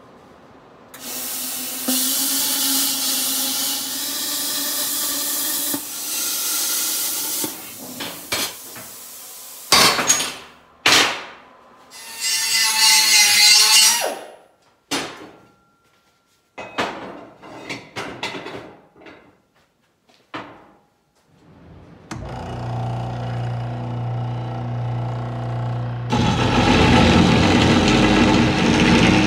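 Hand work on square steel tubing: a long stretch of scraping, then scattered knocks and short scraping strokes. About three-quarters of the way through, a Dake cold saw's motor starts with a steady hum, and near the end the saw blade cuts into the steel tube, adding a louder grinding.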